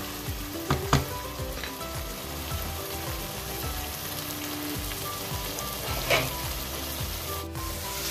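Chicken kurma sizzling and frying in a stainless steel pot as its cooking water dries off, stirred with a wooden spatula that knocks against the pot a couple of times about a second in and once more near six seconds.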